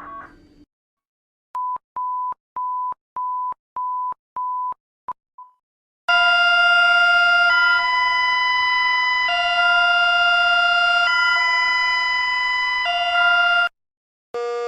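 An emergency alert alarm: six short beeps at one steady pitch about half a second apart, then a loud electronic alert tone of several notes sounding together, switching back and forth between two chords roughly every two seconds before cutting off suddenly. A siren begins to rise right at the end.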